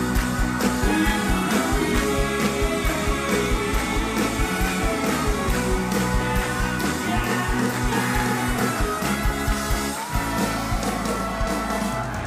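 Pop-rock band music with a steady drum beat and singing.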